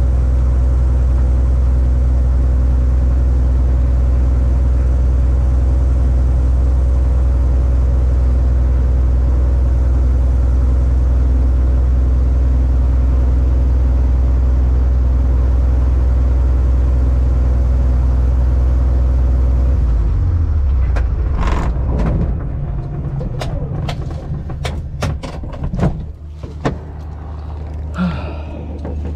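Single-engine aerobatic plane's propeller engine idling steadily as it taxis, heard inside the cockpit, then shut down about 20 seconds in. Afterwards come a series of sharp clicks and knocks as the canopy is unlatched and swung open.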